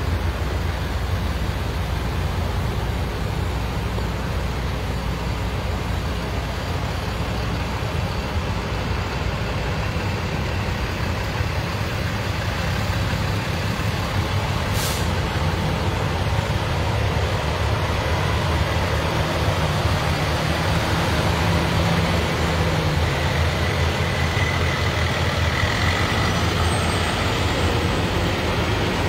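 Heavy tow trucks running as they pass in procession, a steady low engine sound, with a brief high hiss about halfway through.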